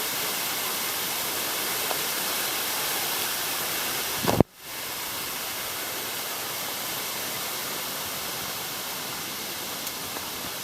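Small cascade waterfall: water rushing steadily, an even hiss. It briefly cuts out about four and a half seconds in, just after a short knock, then carries on as before.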